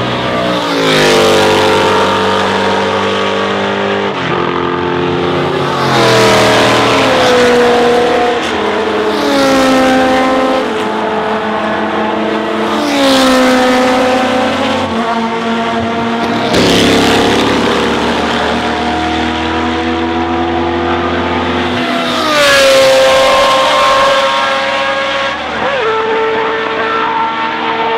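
Historic CanAm/Interseries sports racing cars passing one after another at high revs, about six times. Each engine note rises to a loud peak and then drops in pitch as the car goes by.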